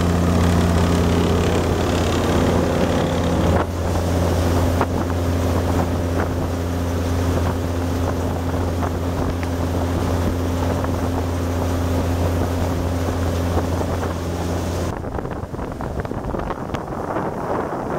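Volvo Penta D9-575 six-cylinder marine diesel driving a planing boat at speed: a steady engine drone with the hull rushing through the water and wind on the microphone. About fifteen seconds in, the engine drone cuts off abruptly, leaving wind and water noise.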